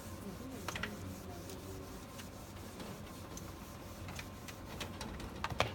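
Handheld whiteboard eraser scrubbing a painted whiteboard panel, heard as scattered light clicks and taps. The sharpest clicks come about a second in and just before the end.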